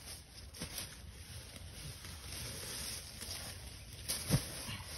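Footsteps and rustling through brush and dry leaves, then one sharp thump about four seconds in as a dead wild turkey tom is set down onto the leaf litter.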